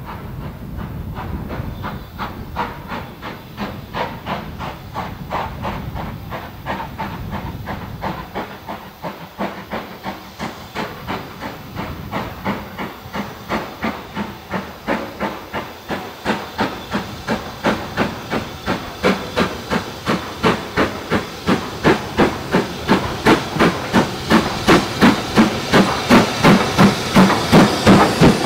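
BR Standard 5MT 4-6-0 No. 73082 'Camelot', a two-cylinder steam locomotive, approaching under power with a steady rhythm of chuffing exhaust beats. It is faint at first and grows louder as it nears, loudest near the end as it draws level.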